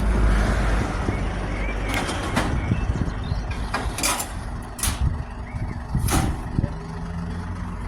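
Truck engine running with a steady low rumble, and a handful of sharp knocks and clanks over it about two, four, five and six seconds in.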